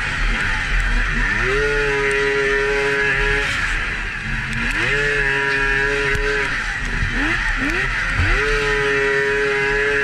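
Polaris XCR 800 three-cylinder two-stroke snowmobile engine under hard throttle on a hill climb. The revs climb and hold, fall off and pick up again a few times, with two quick throttle blips about three-quarters through. A steady rushing hiss runs underneath.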